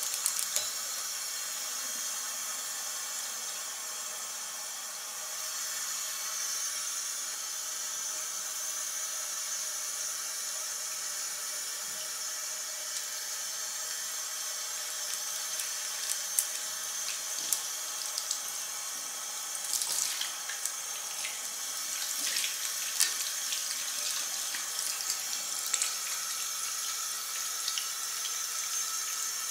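Water running steadily from a bathroom sink mixer tap into the basin as hands are rinsed under the stream, with a scattering of light clicks in the second half.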